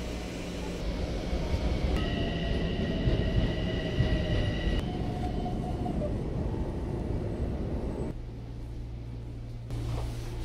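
Rumble of a moving train, with a steady high whine for about three seconds in the middle and a tone that rises slowly after it. Near the end the rumble gives way to a quieter, steadier low hum.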